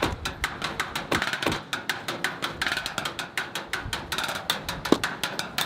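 Rapid, fairly even clicking taps, several a second, with deeper knocks about a second in and again near the end.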